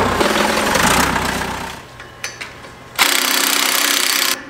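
A forklift engine runs for the first second or two and then fades. About three seconds in, a Milwaukee cordless impact wrench hammers hard at the large nut on a disc gang's shaft, loosening it, for about a second and a half.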